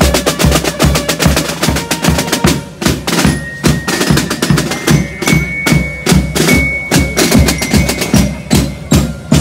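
Marching drum band's snare and bass drums beating a steady march rhythm, with snare rolls over a regular bass drum beat.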